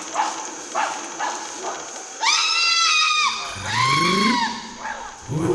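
Chimpanzees pant-hooting: a run of short rising hoots builds into two long, high screams, about two and three and a half seconds in, with a deeper rising call under the second.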